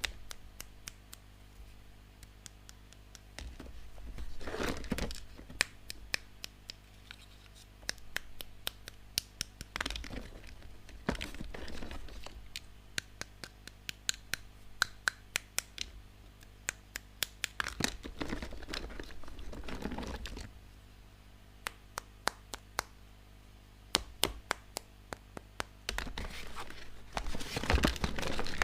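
Hands unwrapping plastic toy packaging: crinkling and tearing in short swells, with many sharp clicks of small plastic pieces being handled.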